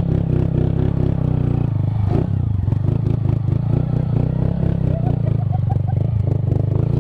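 Honda Titan 160's single-cylinder four-stroke engine, fitted with a Fortuna aftermarket exhaust, running steadily at low trail speed with no sharp revving.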